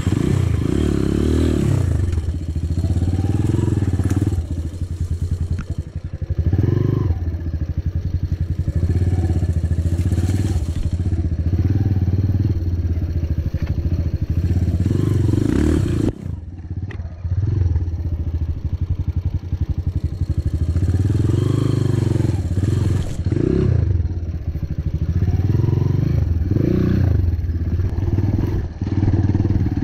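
Trail motorcycle engine running and revving up and down again and again, with a short drop in level about halfway through.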